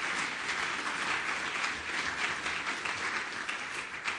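Audience applauding: many hands clapping in a dense, steady patter that eases off slightly near the end.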